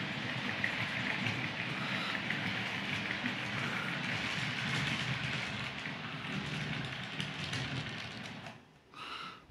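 Piko model of the SU45 diesel locomotive, with passenger coaches, running along model railway track: a steady rattle of small wheels on the rails with fine clicks and a low motor hum. It fades near the end, and a brief tone follows.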